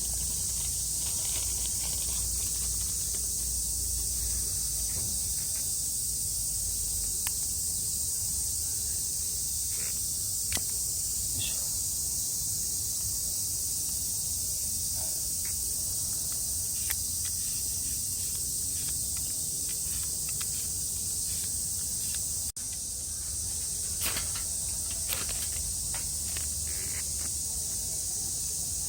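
Steady high-pitched droning chorus of cicadas, unbroken throughout, with a few faint scattered clicks and light knocks.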